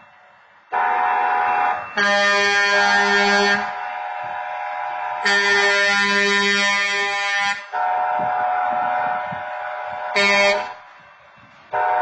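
Rail maintenance vehicle's air horn sounding at a grade crossing: a loud chord held nearly the whole time, swelling into long, long, short and long blasts, the standard crossing warning pattern.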